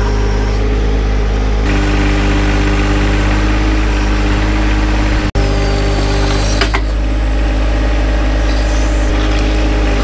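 John Deere 1025R compact tractor's three-cylinder diesel engine running steadily at working throttle while it drives the 260 backhoe digging, its note shifting a little about two seconds in. A short sharp crack comes about seven seconds in.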